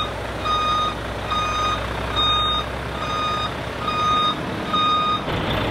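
Volvo truck's reversing alarm beeping steadily, about one beep a second, over the low running of its engine; the beeps stop about five seconds in.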